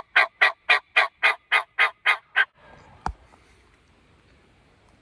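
A loud run of about a dozen turkey yelps, about four a second, stopping about two and a half seconds in, followed by a single sharp click about three seconds in.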